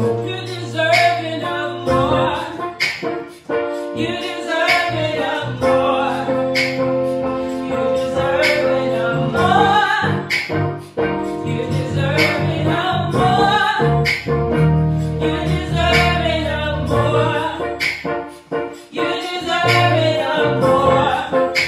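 Gospel praise and worship song: a woman sings lead over sustained chords and bass from a Roland Fantom X8 keyboard.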